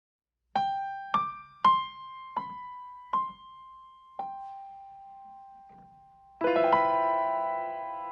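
Intro music on piano or electric piano: single notes struck one at a time, each ringing and fading, then a full chord about six and a half seconds in.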